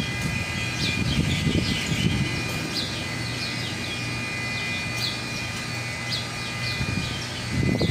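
Birds chirping repeatedly in short, falling notes over a steady low machine hum.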